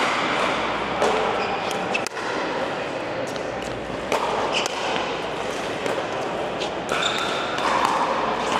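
Pickleball rally: paddles striking the plastic ball in a string of sharp pops at irregular intervals, with hits from other courts and a busy hum of voices behind.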